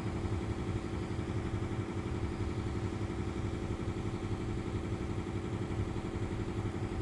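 A steady low machine hum, unchanging throughout, with no distinct knocks or handling noises standing out.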